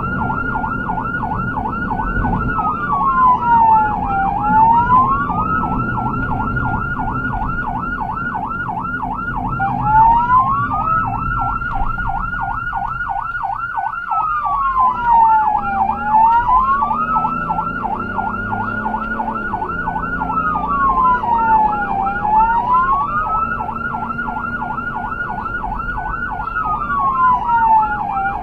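Two electronic emergency-vehicle sirens overlapping: one a slow wail rising and falling about every six seconds, the other a rapid yelp. Under them runs the steady engine and road noise of the moving vehicle.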